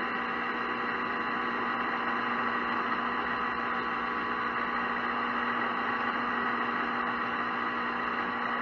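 Metal lathe running steadily, with a hum, while a parting blade is fed slowly into spinning half-inch copper rod to part off a bead.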